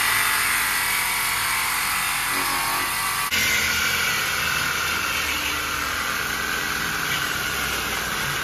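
Corded reciprocating saw cutting through a car's metal exhaust pipe to remove the muffler, running steadily with a sudden change in tone a little over three seconds in.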